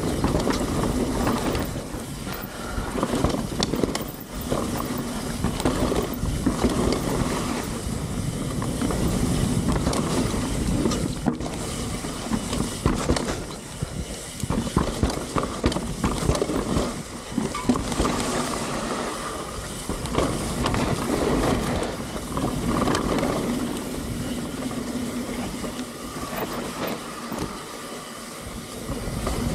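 Mountain bike ridden down a dirt trail: tyres rolling over the ground, with frequent rattles and knocks as the bike hits bumps.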